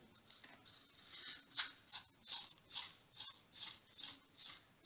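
Mustard seeds shaken out of a small plastic cup into a steel mixer-grinder jar of ground coconut. They fall as a regular run of short rattles, about two or three a second, starting about a second in.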